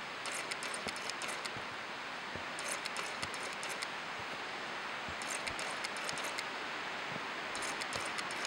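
Steady rushing noise of the Daisen Falls waterfall, now falling in a single drop after sediment filled its plunge pool.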